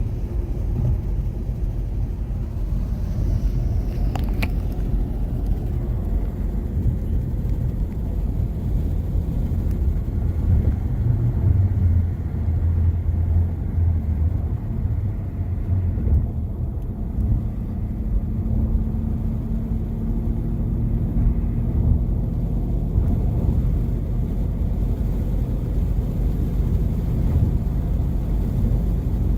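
Steady low rumble of a car on the move, with a faint hum that rises slightly midway through and a single sharp click about four seconds in.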